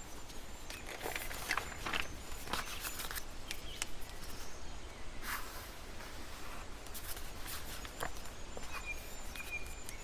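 Quiet outdoor ambience with scattered small clicks, taps and rustles of hands handling gear: a spotting scope being adjusted, then a pen on a map clipboard.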